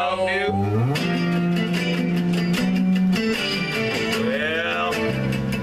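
Acoustic guitar being played, with chords ringing over held bass notes that change every second or so.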